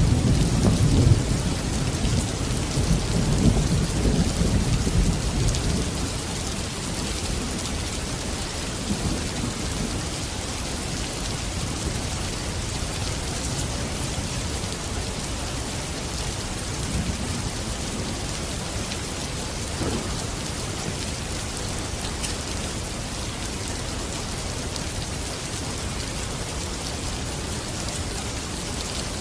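Steady heavy rain with a deep roll of thunder that fades away over the first several seconds, leaving an even hiss of rain.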